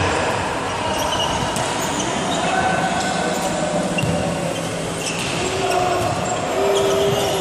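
Echoing sports hall between volleyball rallies: a steady murmur of voices, with a few scattered thuds of a ball bouncing on the court floor.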